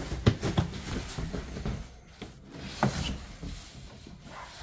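Cardboard being handled: box flaps and a cardboard insert box shifted and scraped against each other, with a series of dull knocks, the loudest just after the start and again near three seconds.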